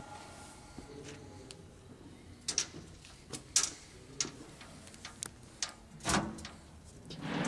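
Irregular sharp metal clicks and knocks, with a heavier knock about six seconds in: the cabinet doors and latches of a cylindrical grinder being handled.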